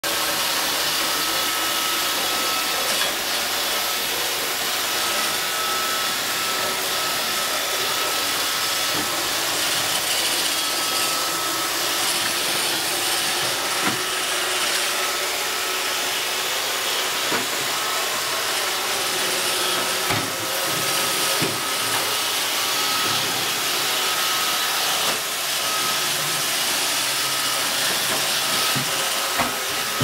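iRobot Roomba robot vacuum running over a wooden floor: a steady whirring hiss with a faint high whine. A few short knocks come through it now and then.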